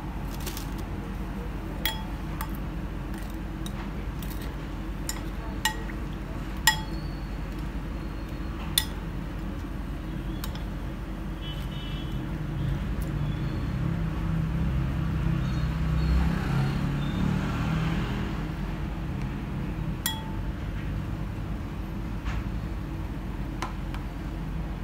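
Metal spoon clinking against glass dishes, a handful of sharp separate clinks, while ladyfingers are soaked in coffee and laid into a glass dish. Under it runs a steady low rumble that swells for several seconds in the middle.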